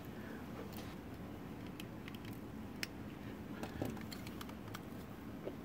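Scattered small clicks and taps from a plastic electronics enclosure being handled and turned over, with a sharper click about halfway through and a few more close together soon after.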